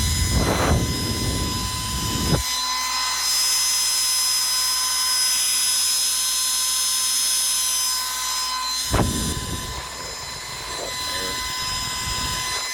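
Gillette Supermax 1500 hair dryer running on low speed with no heat: a steady motor whine over rushing air, with low rumbles in the first couple of seconds and again about nine seconds in. The owner thinks its fan motor needs oil.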